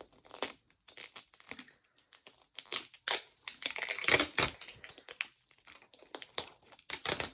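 Paper wrapping being peeled and crumpled off a plastic Miniverse toy capsule: irregular crinkling and crackling with sharp clicks, loudest about halfway through.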